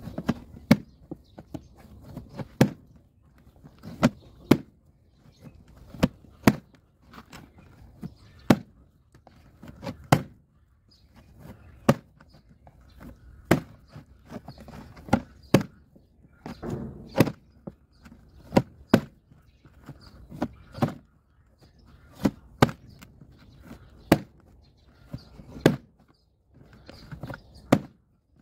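Sticky pita dough slapped down and folded by hand in a plastic tub: sharp wet slaps about once or twice every two seconds, often in quick pairs.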